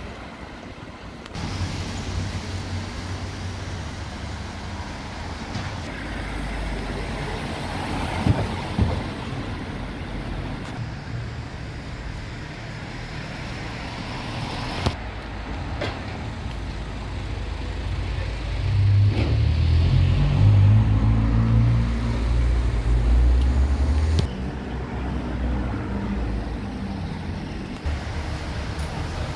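Street traffic: the low rumble of cars driving along a town street, swelling to its loudest a little past the middle as a vehicle passes close. A few sharp knocks stand out about a third and halfway through.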